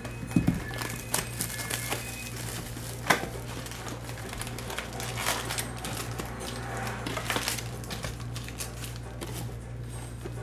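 Hands opening a cardboard trading-card box and handling its foil-wrapped card packs: crinkling, rustling and small taps of cardboard and wrappers, over a steady low hum.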